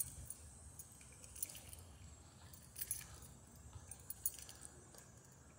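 Keys jingling faintly as the person carrying them walks: a handful of light, irregular clinks over a quiet background.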